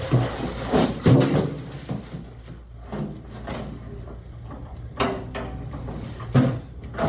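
Bumps and knocks of a heavy large-format inkjet printer being lowered by hand onto its metal stand, with sharp knocks about five and six and a half seconds in as it is set down onto the stand's posts.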